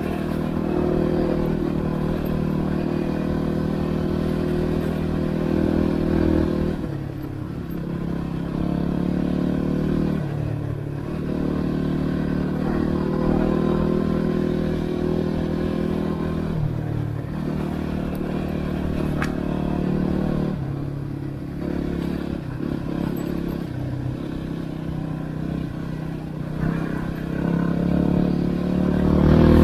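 Yamaha WR250R's 250 cc single-cylinder four-stroke engine running under riding load, the engine note dropping off and picking up again several times as the throttle is eased and reopened.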